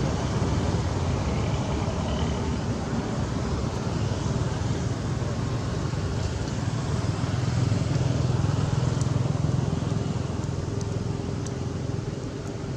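Steady low rumble of motor traffic, swelling slightly midway, with a few faint ticks near the end.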